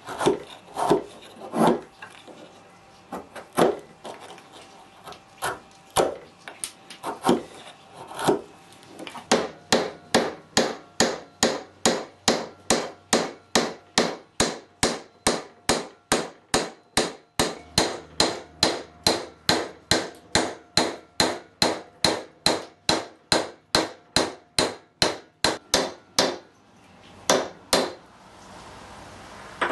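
A chisel chopping into a wooden stick with a few irregular sharp knocks, then a steady run of mallet blows, about two a second, driving the stick down through a steel dowel plate to round it into a peg. The blows stop shortly before the end, followed by two more.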